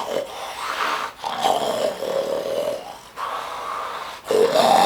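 Deep, growling human snoring of the kind called the 'bear' snore: about four rasping snores, each roughly a second long, with short breaks between them.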